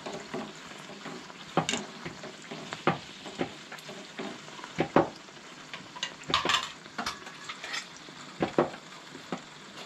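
Banana bun dough deep-frying in hot oil in a steel kadai, a steady sizzle. Scattered sharp metal clinks and knocks come from the wire spider strainer against the pan and a steel plate as a fried bun is lifted out.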